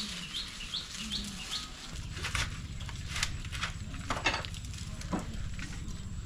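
A small bird repeats a short rising chirp several times. About two seconds in, a low steady hum starts, with scattered rustles and sharp cracks over it.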